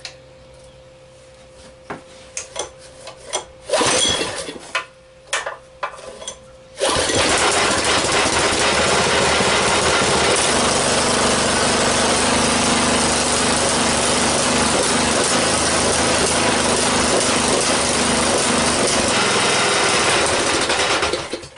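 Briggs & Stratton 6.5 hp single-cylinder engine on a tiller being pull-started: a few clicks and a short burst about four seconds in, then the engine catches about seven seconds in and runs at a steady speed until it is shut off just before the end. It runs fine on its freshly rebuilt carburetor.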